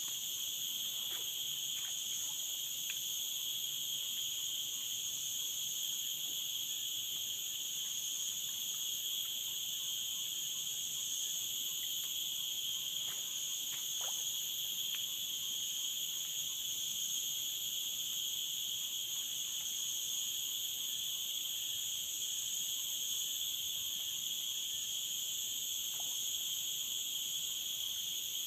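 Steady chorus of forest insects: a continuous high-pitched buzz in several layered pitches at once, unchanging throughout, with a few faint clicks.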